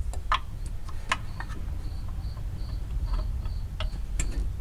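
A cricket chirping in short, evenly repeated high chirps, about two a second, over a steady low hum. Scattered light clicks come from parts being handled.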